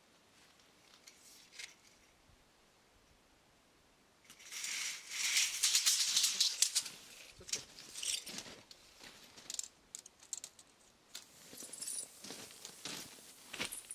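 Crushed-stone gravel crunching and rattling underfoot: a loud rattling rush of about three seconds starting about four seconds in, then irregular crunching footsteps on the stones.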